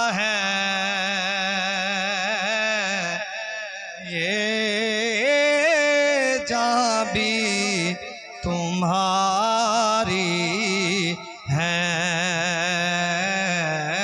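A man's voice singing an Urdu naat without instruments, amplified through a microphone, drawing out long wavering melismatic notes with short breaks for breath between phrases.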